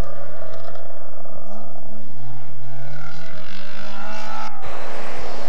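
Mk2 Ford Escort rally car's engine revving hard as it accelerates away on a gravel forest stage, its pitch climbing. The sound cuts off abruptly about four and a half seconds in.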